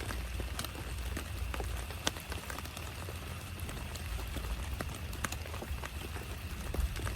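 Heavy rain falling, a steady hiss with individual drops tapping sharply and irregularly close by, over a low rumble.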